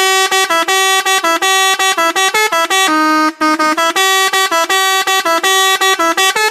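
Indonesian 'telolet' multi-tone bus horn playing a fast tune: a run of short horn notes, several a second, jumping between a few pitches, that stops abruptly near the end.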